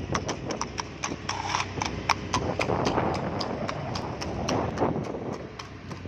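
A horse's hooves clip-clopping on an asphalt road at a fast pace: a quick, even run of sharp hoof strikes, several each second, over a steady background noise.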